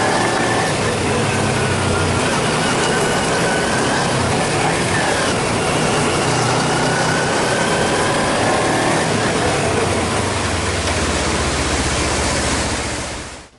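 Kawasaki Ninja 250's parallel-twin engine running as the motorcycle is ridden, its pitch rising and falling a little with the throttle, over a steady rush of wind noise. The sound fades out near the end.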